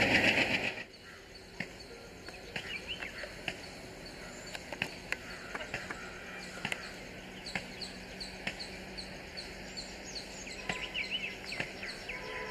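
Loud train running noise cuts off abruptly under a second in. Birds then chirp repeatedly over a quiet outdoor background.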